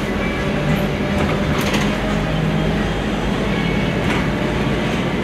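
Cabin noise inside a Scania articulated bus under way: a steady engine hum over road rumble, with a few faint rattles.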